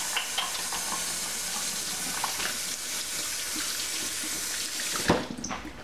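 Kitchen faucet running into a stainless steel sink as hands are rinsed under the stream. The water stops with a knock about five seconds in.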